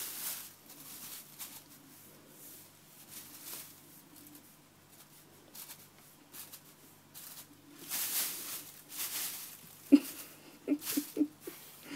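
Thin plastic bag rustling and crinkling in brief bursts as a cat shifts about inside it, loudest about eight seconds in, followed near the end by a few short sharp taps.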